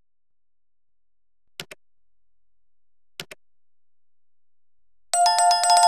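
Subscribe-button animation sound effects: two quick double mouse clicks about a second and a half apart, then, about five seconds in, a bright notification-bell chime that opens with a rapid rattle of strikes and keeps ringing.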